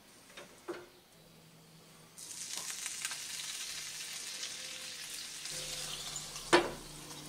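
Water poured into a hot nonstick frying pan with soufflé pancakes sizzles and hisses loudly from about two seconds in. Near the end a lid clanks down once onto the pan, and the sizzling goes on a little quieter under it. A couple of soft taps come before the water.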